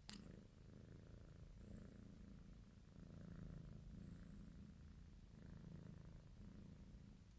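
British Shorthair cat purring faintly, the purr swelling and easing every second or two with its breathing. A short click sounds right at the start.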